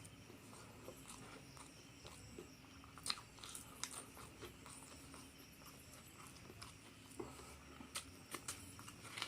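Close-up eating sounds: chewing with scattered crisp crunches and mouth clicks, in clusters a few seconds in and near the end, from crispy fried duck with rice.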